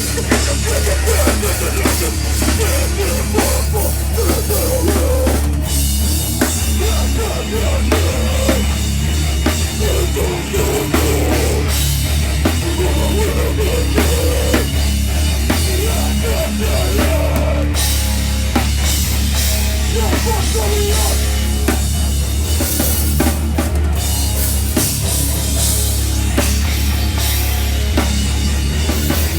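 Live heavy rock band playing loudly with distorted guitars, bass and a hard-hit drum kit.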